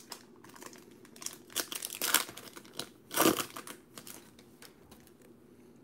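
Wrapper of a sealed trading-card pack crinkling and tearing as it is ripped open by hand, in a run of irregular crackles, loudest about two and three seconds in.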